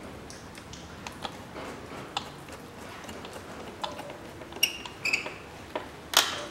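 Light clicks and ticks of a screwdriver tightening a metal hose clamp on the plastic air-intake duct, with two short metallic pings a little past halfway and a sharper click near the end.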